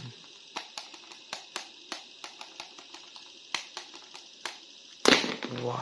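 Light, irregular clicks and taps of hands handling a hard plastic action figure. A louder knock comes about five seconds in, just before a voice begins saying "wow".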